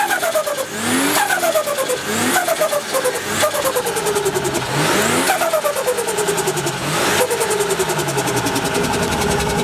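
Turbocharged Nissan Skyline engine revved in short bursts, about five times, each rev falling away slowly with a rapid fluttering chatter from the turbo as the throttle closes.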